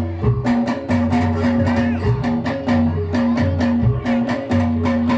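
Loud amplified music for a soreng dance, with a steady beat of drum strokes over a repeating bass line and held tones.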